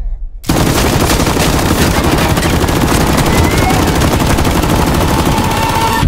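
Automatic gunfire: one long, continuous stream of rapid shots that starts about half a second in and cuts off abruptly at the end.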